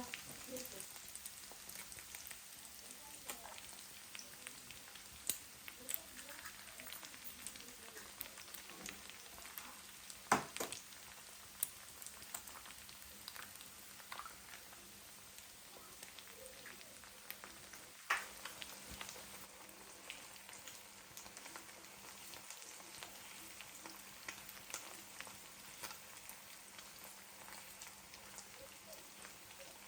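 Food sizzling steadily in a frying pan, with a few sharp clicks and taps scattered through, two of them louder than the rest.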